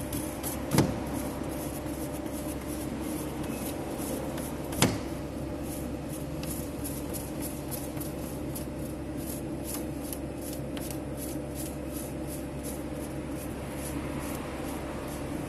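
Hand hole-punching tool being worked against the plastic body of an RBC drum: two sharp clicks, about a second in and near five seconds, then a run of faint quick ticks as it is turned. A steady machine hum runs underneath.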